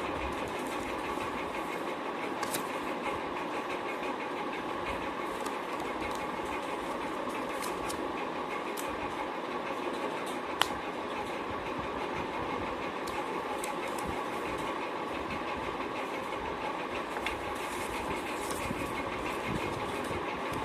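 Steady mechanical whirring, with one sharp click about ten and a half seconds in.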